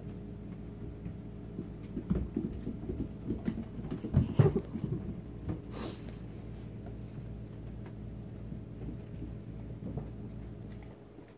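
Baby goats' small hooves tapping and clattering on a hardwood floor, busiest between about two and five seconds in with a few louder knocks, over a steady low hum.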